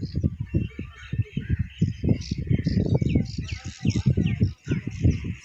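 Small birds chirping throughout in quick, high, repeated notes, heard over a louder, irregular low rumble of wind buffeting the microphone.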